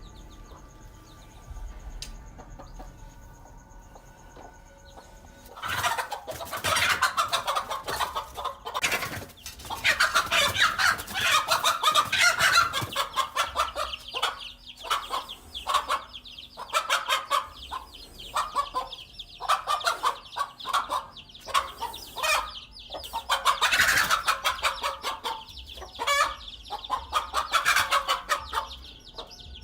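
Mother hen clucking and squawking in rapid, repeated alarm calls as she defends her brood from a king cobra. The calls start about six seconds in and come in two heavier spells.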